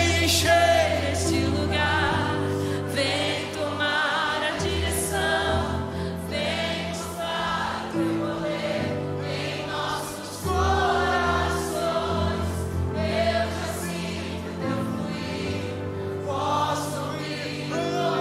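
Worship music: voices singing sustained, wavering lines over a band with long, held bass notes.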